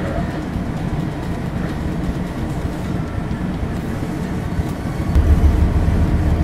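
An anchor-handling vessel's engines running with a steady low drone; about five seconds in the drone grows clearly louder and deeper as power is increased.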